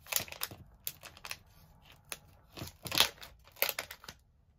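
Plastic resealable pouch of wax melts crinkling and crackling as it is handled and pulled open, in several short clusters of sharp crackles, the loudest about three seconds in.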